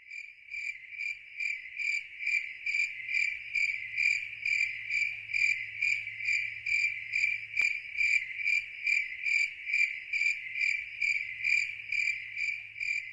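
Insect chirping: one high, even-pitched note pulsing steadily about three times a second.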